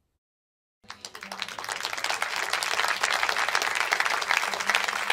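Applause from a crowd, dense rapid clapping that starts about a second in after dead silence and swells quickly to a steady level.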